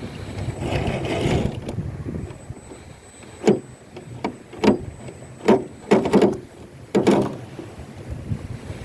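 Modified FTX Kanyon 1/10 scale RC rock crawler driving over rough ground: a series of sharp knocks and clacks, about seven in the middle of the stretch, over a faint steady high whine, with wind noise on the microphone near the start.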